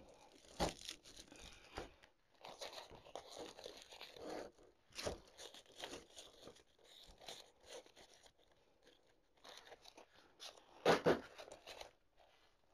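Rustling and crackling of floral stems and leaves being worked into a dry grapevine wreath by hand, in irregular bursts, with the loudest crunch near the end.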